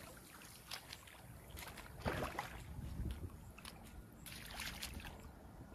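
Faint low rumble with scattered light knocks and taps, the most distinct about two seconds in.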